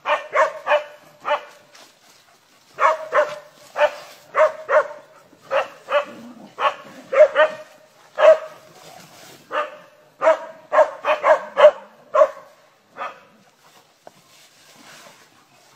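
A dog barking over and over in quick runs of two to four sharp barks, falling silent for about two seconds near the end.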